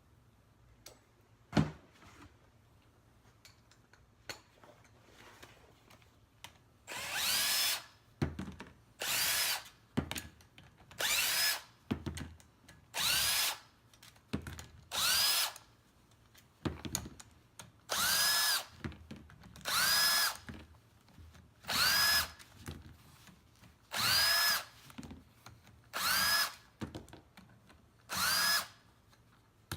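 A single sharp knock near the start, then a power drill run in repeated short bursts, about one every two seconds, each spinning up in pitch and winding down again as it drives out the bolts of a semi-hermetic compressor's housing.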